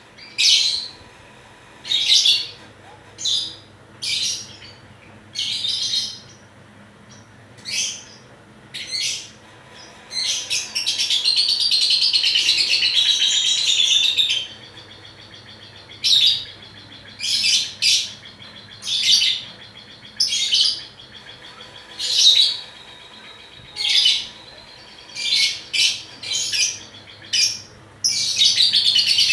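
A pet lovebird chirping in short, sharp bursts every second or two. About ten seconds in it breaks into one long chattering warble lasting about four seconds, and another chattering run starts near the end.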